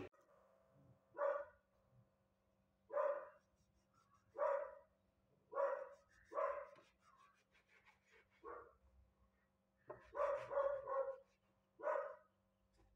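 A dog barking: about ten short, separate barks a second or so apart, with a quick run of three near the end.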